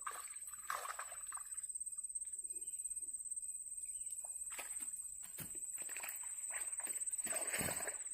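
Water splashing and sloshing in irregular bursts, thickest in the second half, with a steady high-pitched whine behind it.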